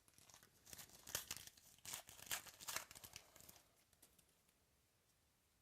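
Thin plastic trading-card packaging crinkling and crackling for about three seconds, then fading away.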